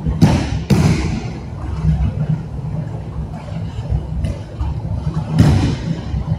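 Bodies and hands slapping onto training mats in aikido throws and breakfalls: two sharp thuds close together just after the start and another about five seconds in, over a steady low hum.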